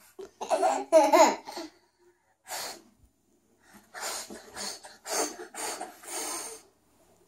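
A young boy giggling, then blowing a string of about five short, breathy puffs at a small plastic ball on a tabletop, with laughter mixed into the blowing.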